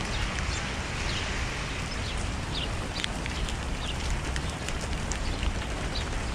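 Heavy rain falling steadily on wet pavement, with scattered sharp drop sounds and a low rumble underneath.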